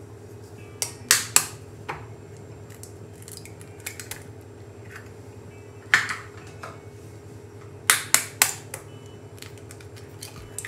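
Eggs being cracked: a few sharp taps of shell on a hard edge about a second in, and another group about eight seconds in, each egg dropping into the bowl of dry cake mix. A faint steady hum runs underneath.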